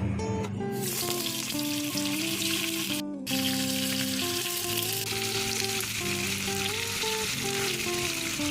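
Food sizzling as it fries in hot oil. The sizzle starts about a second in, cuts out for a moment a little after three seconds, then carries on steadily. Background music with stepping notes plays underneath.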